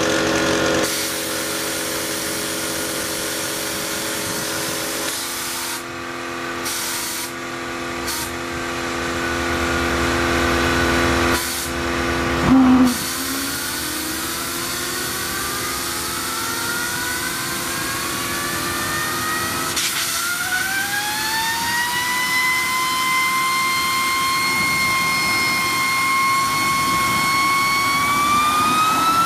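Homemade model turbojet starting up: blasts of compressed air spin it, then the turbine's whine rises steadily in pitch as it spools up, holds for a few seconds and climbs again near the end as it lights and accelerates. A short loud burst comes about twelve seconds in.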